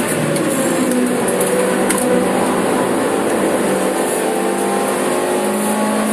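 Suzuki Swift Sport's four-cylinder engine running hard under load, heard inside its stripped, roll-caged cabin over road and wind noise. The engine note falls and rises as the revs change.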